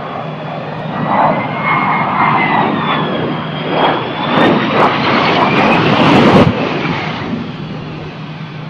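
Aircraft engines running loud: a steady low hum under a rushing noise, with high whining tones that slowly glide in pitch. The noise swells and then eases off from about six and a half seconds in.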